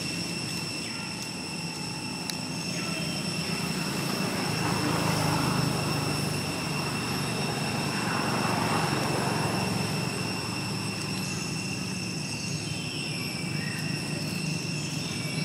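Tropical forest ambience: a high, unbroken insect whine of several steady pitches over a low, steady droning rumble that swells in the middle.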